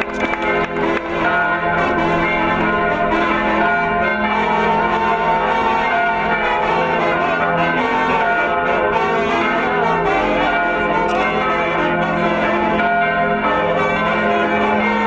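Church bells pealing continuously, several bells ringing over one another, for a wedding as the couple leave the church.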